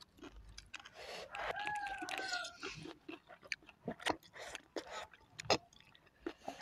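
Close-up chewing of spicy instant noodles, with many short wet mouth clicks. About a second and a half in, a brief drawn-out call sounds for about a second.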